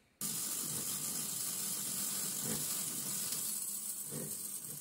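Electric arc welder running a weld on steel: a steady crackling sizzle that starts suddenly.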